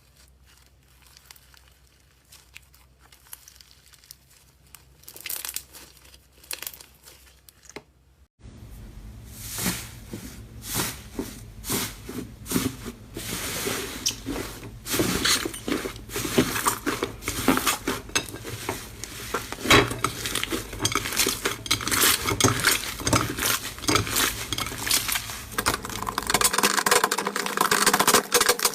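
Slime being squished and worked by hand, giving a run of crackling and popping clicks. It is faint at first, then becomes much louder and denser about eight seconds in.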